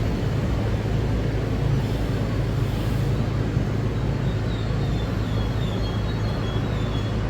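Steady low rumble of a vehicle running, with a few faint, short, high-pitched squeaks in the second half.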